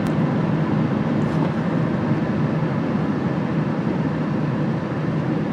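Farm truck driving at a steady speed: a constant engine and road noise.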